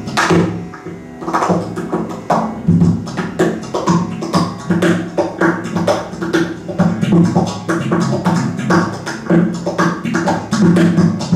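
Guitar played hard in fast rhythmic strumming, with a dense run of sharp percussive strokes over steady low ringing notes.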